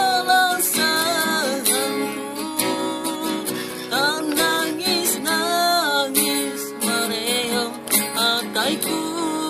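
A man singing, accompanied by a strummed acoustic guitar; his sung notes are held and bend in pitch.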